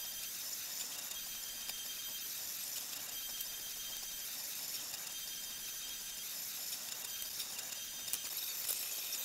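Monoprice Select Mini 3D printer running a print, sped up: its stepper motors whine in short on-and-off stretches of high tones, with a few light ticks.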